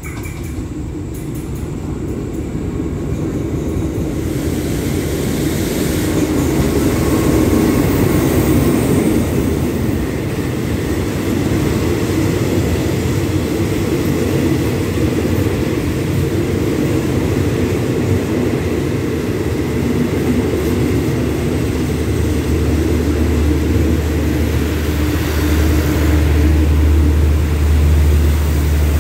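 Diesel-hauled passenger express train pulling slowly into the station along the platform. The locomotive's engine grows louder over the first several seconds as it approaches, then the coaches roll past with a steady rumble, and a deeper engine hum builds near the end.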